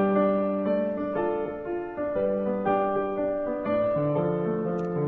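Background piano music: sustained notes changing about every half second.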